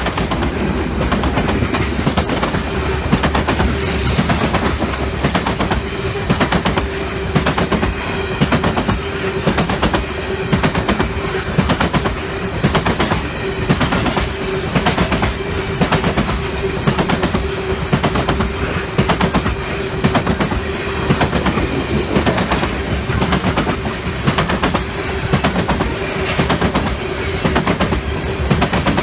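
Train cars rolling past, the wheels clicking over the rail joints in a regular clickety-clack, with a steady tone held underneath.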